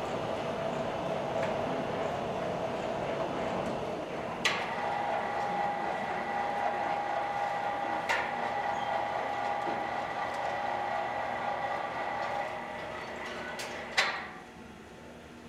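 Steady foundry machinery noise, with an electric overhead hoist lowering a rack of ceramic shell molds: a sharp clunk about four seconds in starts a steady motor whine, another clunk comes midway, and a final clunk near the end is followed by the noise dropping away.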